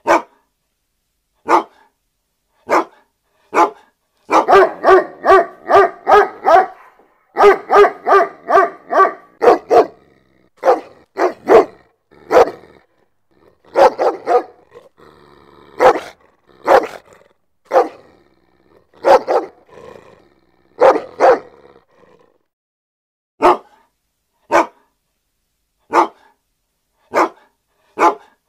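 A dog barking loudly, first in single barks about a second apart. A few seconds in come two fast runs of barks in quick succession, then spaced barks again, at times in pairs.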